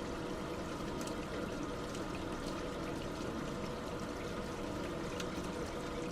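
Liquid pouring in a steady, unbroken stream, with a few faint splashy ticks scattered through it.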